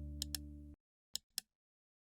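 The tail of a soft background song: a held low chord fades and cuts off under a second in. Pairs of sharp ticks follow at about one pair a second.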